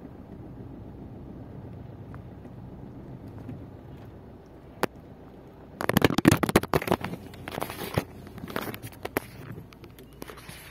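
Low, steady hum of a car's engine and road noise heard inside the cabin in slow traffic. From about six seconds in, loud irregular rubbing and knocking of a handheld phone being moved about against its microphone.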